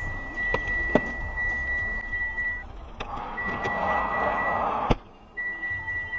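A steady high electronic beep sounding in long pulses of one to three seconds with short gaps, over road noise. A few sharp clicks fall in it, and a rush of noise cuts off with a knock about five seconds in.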